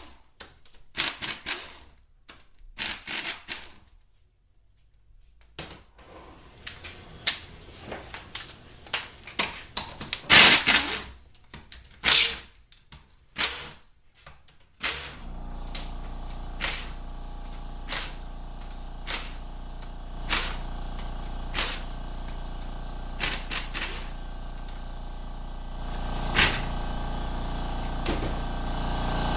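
Pneumatic air ratchet spinning out transmission bell housing bolts in a string of short rattling bursts, with a brief pause early on. From about halfway a steady motor hum starts and runs on under further short bursts and clicks.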